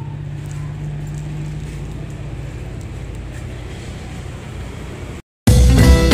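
A steady low rumble like a running motor or road traffic, with a few faint crackles of bubble wrap being handled. It cuts off a little after five seconds, and an intro music track with drums starts just before the end.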